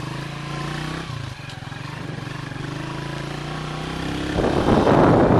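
Motorcycle engine running steadily at cruising speed. About four seconds in, loud wind buffeting on the microphone rises over it.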